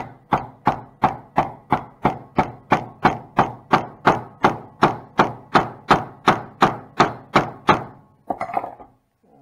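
Hammer tapping on a wooden block, driving a heated aluminum diff cup protector down onto a cold differential cup as a tight press fit. The knocks are steady and even, about three a second, and stop about eight seconds in.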